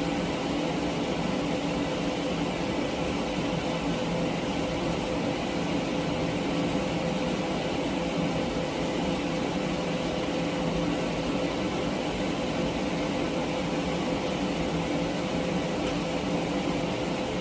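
TIG welding in progress: a steady buzzing hum and hiss from the welding arc and machine, unbroken throughout.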